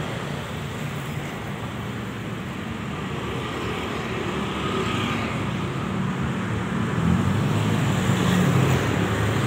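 Busy road traffic passing close by: motorcycle and car engines with tyre noise, getting louder near the end as a group of motorcycles rides past.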